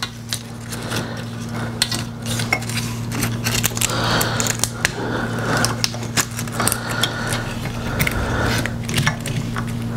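Irregular light clicks, taps and rustles of wires and plastic parts being handled and fitted into a headlight assembly, over a steady low hum.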